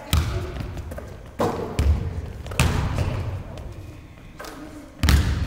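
Basketballs bouncing on a hardwood gym floor: about five separate, irregularly spaced thuds, each with a short decaying ring.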